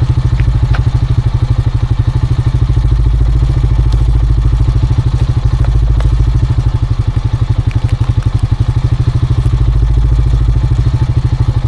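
ATV engine idling steadily, an even low putter.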